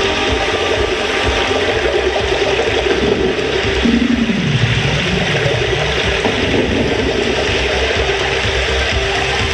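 Electronic sound-design soundtrack of a projection-mapping show, played over loudspeakers: a steady rushing noise over a held low tone, with a lower tone that glides downward about four seconds in.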